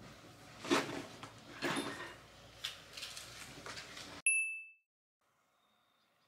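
A few soft knocks and rustles about a second apart, then about four seconds in a short, bright two-tone ding, like an edited-in chime, that rings for about half a second.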